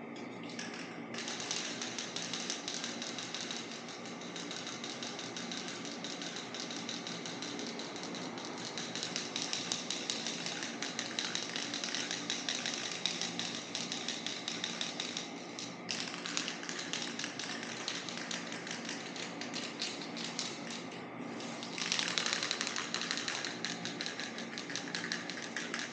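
Paint being sprayed onto a panel: a steady hiss of spray in long passes, starting about a second in and stopping briefly twice in the second half, as a thick coat goes on.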